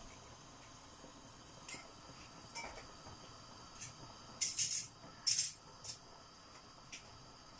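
Quiet kitchen background with a few short, sharp handling noises, the loudest two coming just past the middle.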